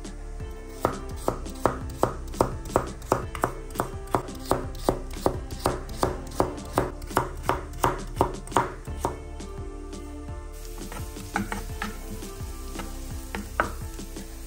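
Knife chopping food on a cutting board: a steady run of cuts at about three a second for some eight seconds, then a few slower, irregular cuts. Background music plays underneath.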